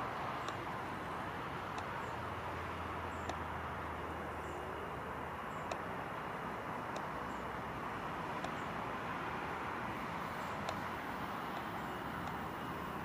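Airbus A320 jet engines running at idle thrust as the airliner taxis, a steady even rush with a low hum beneath it and a few faint ticks.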